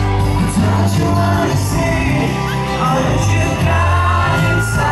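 Live pop performance: a male lead vocalist singing into a microphone over loud amplified band backing with deep, held bass notes.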